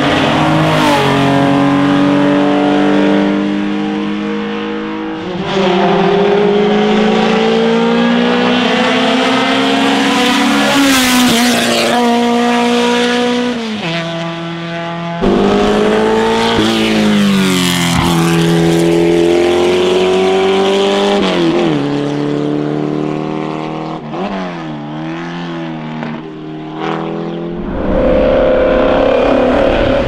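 Classic racing cars at full throttle, one after another, engines revving high. The pitch climbs and then drops back at each gear change, and the engine sound changes abruptly where one car gives way to the next, about halfway through and near the end.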